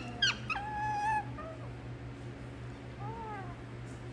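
Pet parrot calling during a head-and-neck rub: a few short pitched calls, the first rising sharply and then held for about a second, and a fainter bending call about three seconds in.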